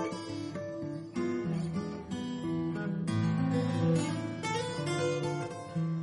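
Background music: acoustic guitar, plucked and strummed, with new chords about once a second.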